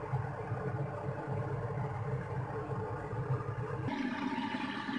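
Steady low mechanical hum, its tone changing abruptly about four seconds in.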